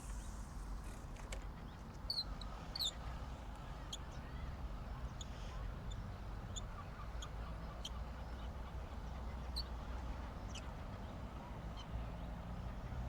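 Scattered short, high bird chirps, a few falling in pitch, over a steady low rumble of wind on the microphone.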